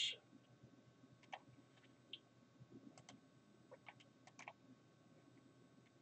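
Faint computer mouse clicks, about half a dozen, some in quick pairs, over near silence.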